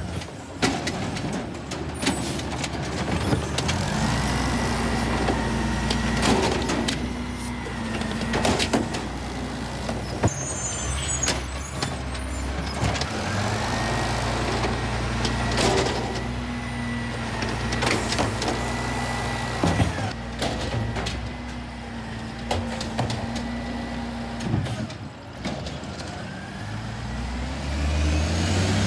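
Diesel Amrep automated side-loader garbage truck working its arm: the engine revs up to drive the hydraulics and a whine rises, holds and falls through two lift-and-dump cycles. Sharp bangs come as the plastic recycling carts are shaken out into the hopper and set back down.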